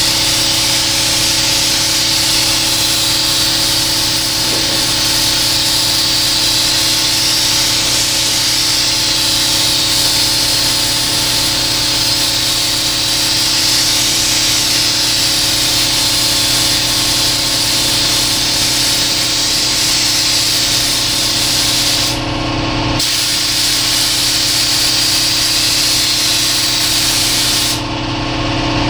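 Gravity-feed automotive spray gun hissing as it sprays paint in long passes, the hiss swelling and fading with each sweep. It stops twice near the end, for about a second each time, as the trigger is let go. A steady mechanical hum runs underneath.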